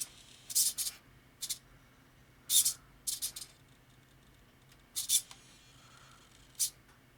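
Small hobby servo in a robot's neck driving in short moves, making about seven brief, scratchy, high-pitched buzzes at uneven intervals as its position is changed.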